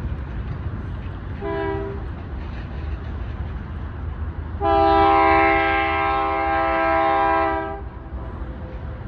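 Diesel locomotive multi-chime air horn: one short blast, then about three seconds later one long, loud blast lasting about three seconds, over a steady deep rumble from the approaching freight train.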